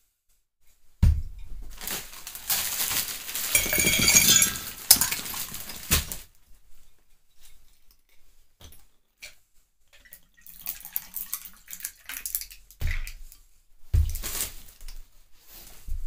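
Ice cubes tipped into a glass beer mug, clattering and clinking for about five seconds. Then quieter handling of glass bottles, with a few sharp knocks as bottles are set down.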